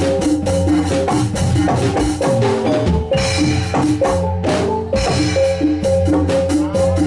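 Javanese gamelan playing jathilan dance music: metallophones repeat a quick pattern of pitched notes over kendang drum strokes, at a steady loud level.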